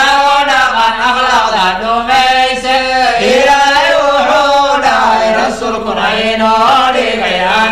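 Voices chanting a melodic, wavering line of a Somali Islamic nasheed between its sung verses, with no drums or beat.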